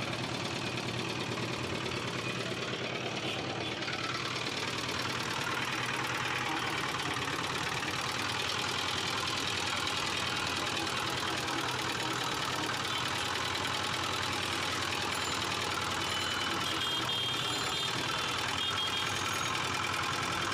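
Belt-driven sugarcane crusher running steadily, its motor humming and its geared steel rollers grinding through stalks of cane as they are fed in.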